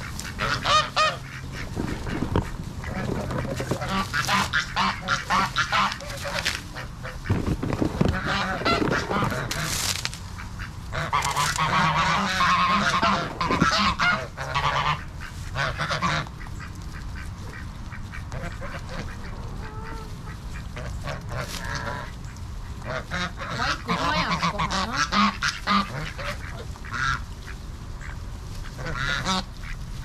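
A flock of domestic geese honking and ducks quacking as they feed, many calls overlapping, louder in bouts about a third of the way in and again past the middle.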